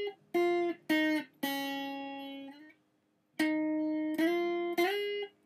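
Guitar with a capo on the first fret playing a single-string riff, one finger sliding between frets: the notes step down and the last rings out and fades, then after a short pause the riff starts again with notes sliding up.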